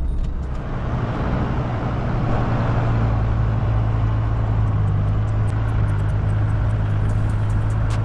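Campervan engine droning steadily as the van drives along a sandy dirt track, with tyre and road noise over it.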